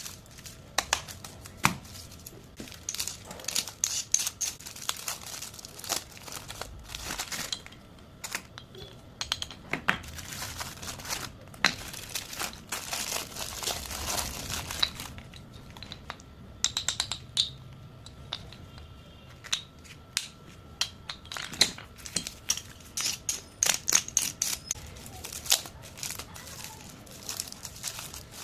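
Crinkly plastic chip packets being handled and torn open, with a dense run of sharp crackles and rustles.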